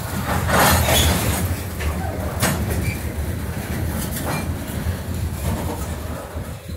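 Freight train's covered hopper cars rolling past close by: a steady rumble of wheels on rail, with a few clanks and short metallic screeches from the wheels and couplers.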